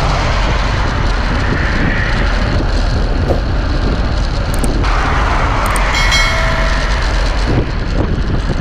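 Wind buffeting the microphone of a camera carried on a moving ride, a loud steady rumble and hiss mixed with road and traffic noise. A short pitched tone sounds about six seconds in.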